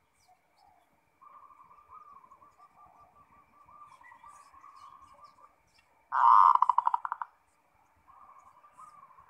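Zebra dove (perkutut) cooing: one loud burst of rapid staccato coo notes about six seconds in, with a softer rippling coo before and after it.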